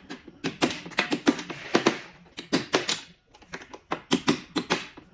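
Sharp clicks and knocks in irregular short runs, with a brief hiss among them about a second in.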